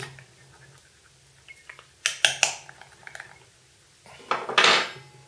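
Small metal fork scraping across a phone's glass touchscreen in a scratch test. A quick run of three or four sharp metallic scrapes comes about two seconds in, then fainter ticks. A longer rushing rub swells and fades near the end.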